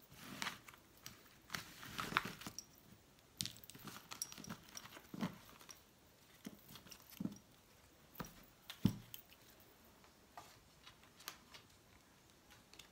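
A small deck of Lenormand cards being gathered up off a tablecloth and handled in the hands: scattered soft clicks and rustles of card on card, with one sharper knock about two-thirds through.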